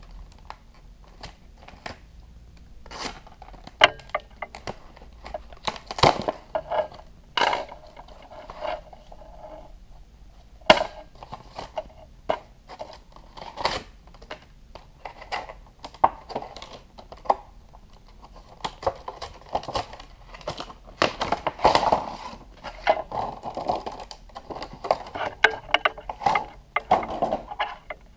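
Clear plastic blister packaging being cut and pulled apart by hand, crinkling and crackling, with many sharp clicks and knocks as the stiff plastic, cardboard and tool are handled.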